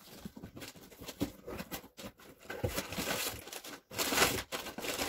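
Rustling and crinkling of packaging being handled and unpacked, loudest about four seconds in.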